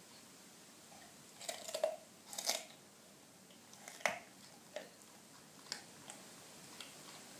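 A dog biting and crunching a raw carrot: two loud bursts of crunching a second or two in, then single crunches about once a second.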